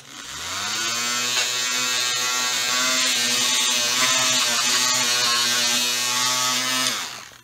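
Oscillating multi-tool, its blade wrapped in a cotton cloth, switched on with a click and rising in pitch as it comes up to speed, then running as a steady buzz while it polishes aluminum cylinder fins. Near the end it winds down and stops.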